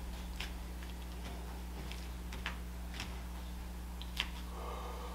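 Quiet room tone: a steady low electrical hum with a few faint scattered ticks, and a soft rush of noise near the end.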